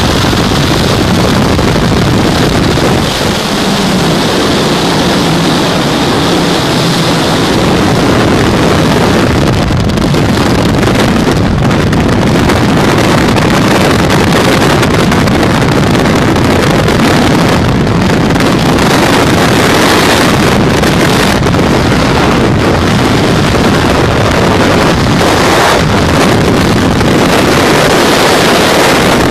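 Loud, steady rush of wind buffeting the camera microphone as a skydiver falls through the air, starting at the open aircraft door and continuing through freefall.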